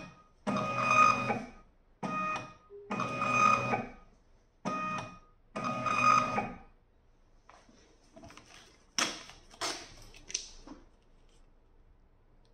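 Desktop RFID label printer (JRI-P100R) feeding and printing labels: a series of whirring motor runs with a steady whine, long and short in turn, about one a second, stopping about seven seconds in. Then soft paper rustling with a few sharp crackles as the printed label strip is handled.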